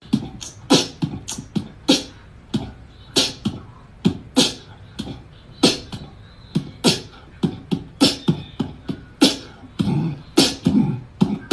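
Beatbox-style mouth percussion: sharp clicks and pops at about two to three a second, with a few deeper voiced hits near the end.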